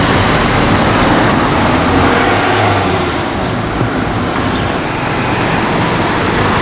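Steady street traffic noise from vehicle engines and tyres, with buses among the traffic.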